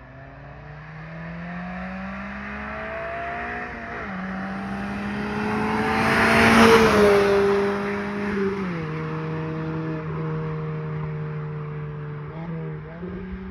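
Suzuki Swift Sport ZC32S's 1.6-litre four-cylinder engine accelerating toward and past, breathing through a straight Remus mid pipe with no silencers and an Ultersport rear silencer. The engine note rises and drops at a gear change about four seconds in. It is loudest as the car passes, about six to seven seconds in, then drops in pitch again near nine seconds and carries on more quietly.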